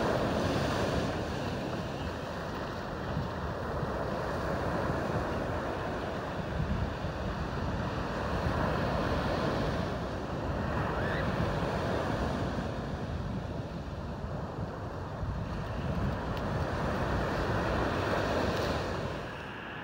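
Ocean surf breaking on the beach, mixed with wind buffeting the microphone; the rush of noise swells and eases over several seconds.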